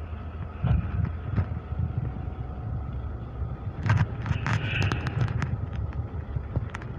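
Uneven low rumble of wind on the microphone over distant traffic noise, with a cluster of sharp clicks and a brief hiss about four seconds in.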